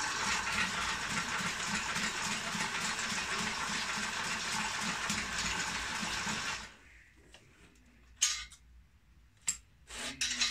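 Homemade electric broom-stitching machine running as it sews a straw broom, a steady hiss over a quick rhythmic beat of the needle mechanism. It stops abruptly about two-thirds of the way through, followed by a few short sharp clicks and knocks.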